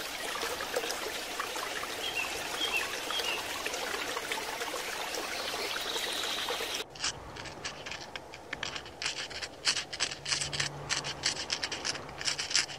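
Steady aquarium water hiss with a few faint bubbling chirps. About seven seconds in it cuts to a rapid, irregular run of sharp clicks and crunches as nutrias feed in snow.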